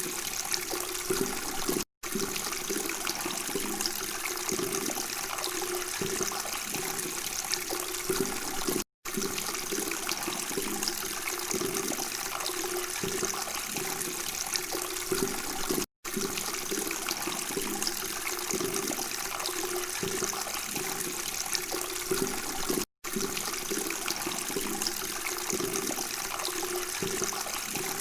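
Water babbling and trickling steadily with a continuous gurgle, broken by brief dead-silent gaps about every seven seconds, four times, where a short recording loops.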